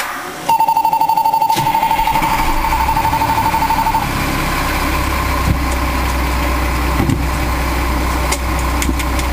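Fire engine's diesel engine cranked over by the starter, catching after about a second and settling into a steady low idle. A rapidly pulsing warning beep sounds over it for the first few seconds.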